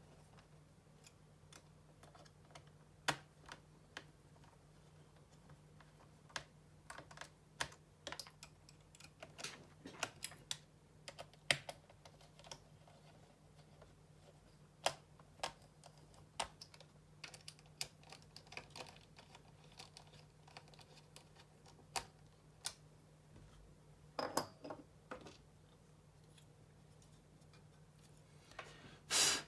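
Irregular small clicks and taps of laptop parts being handled and fitted back together during reassembly of an Acer Extensa 5220, with a louder burst near the end, over a faint steady hum.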